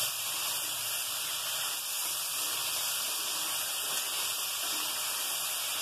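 Crab pieces frying in hot mustard oil in a karahi: a steady sizzle.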